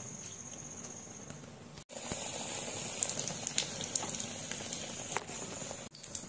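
Batter fritter deep-frying in hot oil in an iron kadai: a steady sizzle with many sharp crackling pops, starting about two seconds in after a faint high steady whine.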